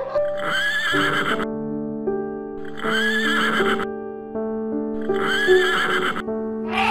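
A high animal call, each about a second long with a pitch that rises and falls, heard three times over steady background piano music.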